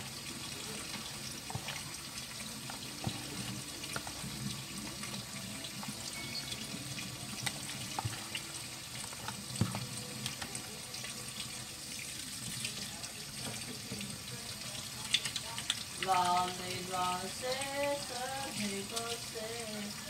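Hands squeezing and turning pork neck in a liquid soy-sauce marinade in a plastic tub: wet squelching and sloshing, with scattered light clicks.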